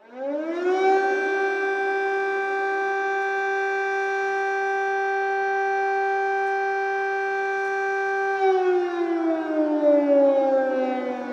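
Ukrainian air raid siren starting up: its wail rises quickly in pitch, holds one steady note for about eight seconds, then begins to fall in pitch near the end.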